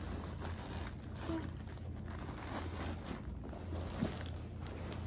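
Soft rustling and shuffling of a fabric dust bag as a leather tote bag is slid out of it, over a steady low hum.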